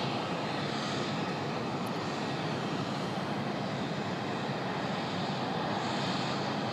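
Steady rushing background noise of a large aircraft hangar, even and unbroken, with no speech.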